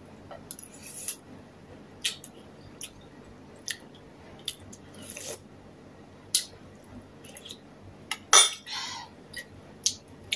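Close-up eating sounds: scattered wet chewing and mouth clicks, with a spoon now and then tapping a bowl. The loudest is a sharp click about eight seconds in, followed by a short slurp.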